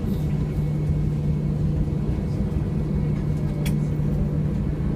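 Cabin noise inside an Airbus A320 on the ground just after landing: a steady low hum over rumble. A single sharp click comes about three and a half seconds in.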